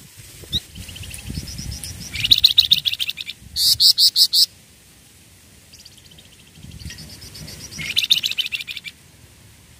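Caged flamboyan songbird singing two phrases of quick, high chirping trills. The first phrase ends in a run of about six loud, sharp notes; the second follows after a short pause.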